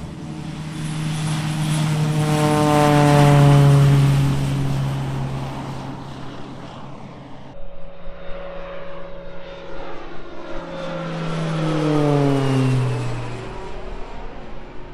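Single-engine propeller airplane flying low past twice, its engine drone swelling and then dropping in pitch as it goes by each time.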